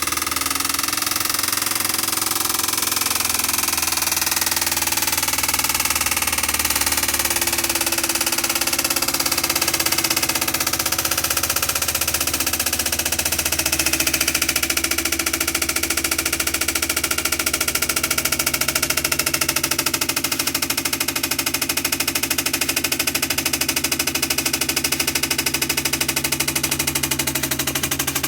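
Electric fan heater overheating at full 2 kW with its thermal fuse bypassed: the fan motor runs with a steady, rapid rattling hum that sounds like an engine, its pitch drifting slightly around the middle.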